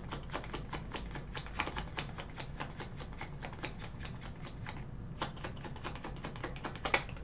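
Tarot cards being shuffled by hand: a fast run of papery clicks for the first four seconds or so, then sparser clicks and one louder snap near the end.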